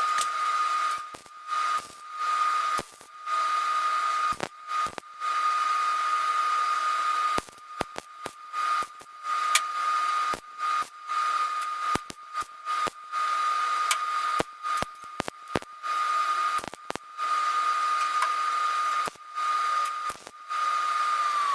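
Gas-shielded MIG welding on car body sheet metal: crackling bursts of the arc, one after another, with short pauses between. Under it is a steady high whine that slides up in pitch at the start and drops away at the end.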